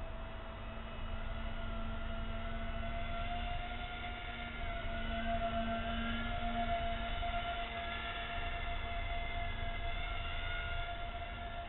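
Steady whine of a twin-motor electric foam RC flying boat in flight, with higher tones that waver with throttle, louder for a couple of seconds mid-way as it passes close. Low wind rumble buffets the microphone underneath.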